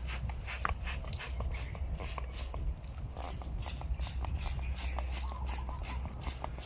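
A paintbrush scrubbing a wet circuit card from a Revox PR99 MKI tape recorder, in quick back-and-forth strokes of about three a second, working cleaner into the dirt and grime.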